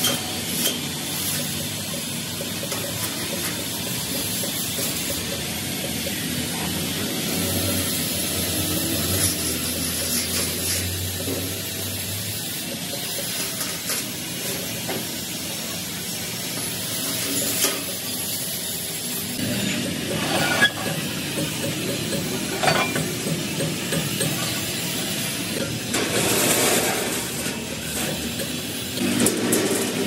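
Steady hiss of workshop background noise, with a few light metal taps and scrapes as a steel rule is laid and slid on a sheet of galvanized steel.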